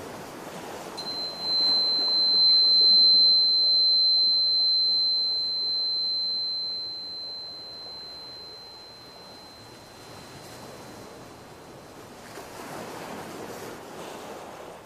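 High-pitched tuning fork struck once, ringing a single pure tone that fades slowly over about ten seconds.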